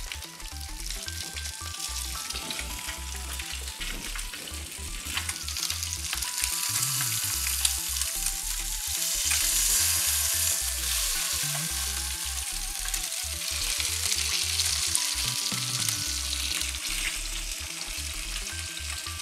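Salmon fillets searing in hot oil in a frying pan, sizzling steadily. The sizzle swells somewhat in the middle.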